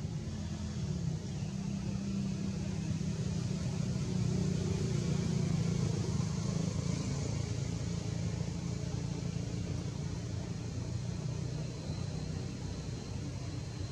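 Low, steady engine hum, as of a motor vehicle, growing louder a few seconds in and easing off again.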